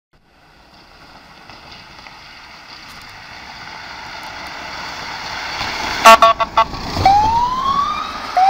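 Mercedes Vito ambulance approaching, its road noise growing louder. About six seconds in, four short loud blasts of the bullhorn, then the wail siren starts up, rising in pitch twice near the end.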